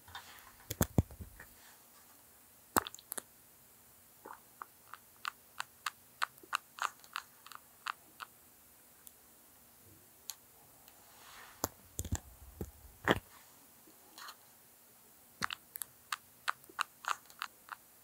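Betta fish biting and chewing food pellets, heard as an irregular scatter of tiny sharp crunches and clicks, with a few louder knocks about a second in and again around twelve to thirteen seconds.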